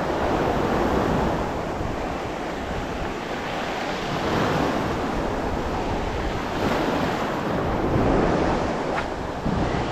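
Sea waves breaking and washing through shallow, foaming surf, swelling and easing every few seconds, with wind buffeting the microphone.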